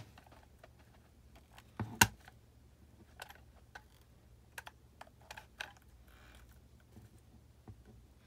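Scattered light clicks and taps of scissors and a hot glue gun being handled, the scissor blade working at the gun's nozzle, with a louder double knock about two seconds in.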